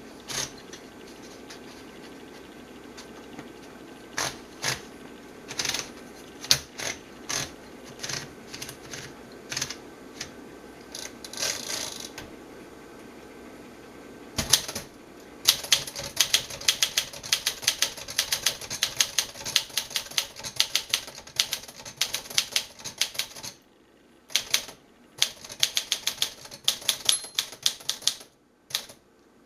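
Keys striking on a 1952 Smith-Corona Silent manual typewriter: a few separate keystrokes at first, then rapid continuous typing from about halfway through, breaking off briefly twice near the end.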